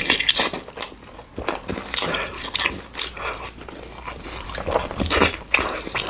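Close-miked eating: a person biting and chewing food, with irregular crunches and wet mouth clicks.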